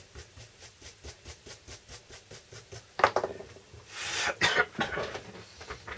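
Small bristle brush scrubbing a circuit board in quick, even strokes, about four a second, cleaning the board after hot-air soldering. About three seconds in a person coughs, then coughs again more heavily about a second later.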